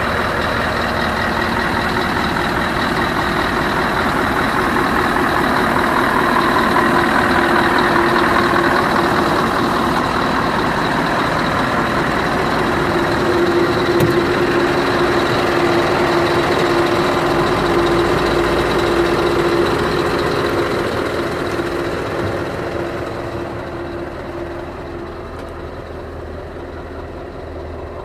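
Scania R560's 16-litre V8 diesel idling steadily, with one sharp click of the cab door handle about halfway through. The engine grows quieter and duller over the last few seconds as it is heard from inside the cab.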